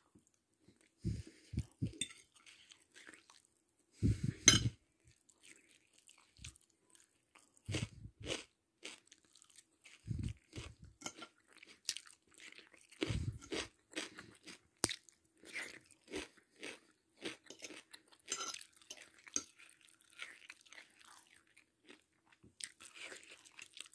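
A person chewing a mouthful of biryani close to the microphone: irregular soft crunches and mouth clicks, with a few duller thumps spread through.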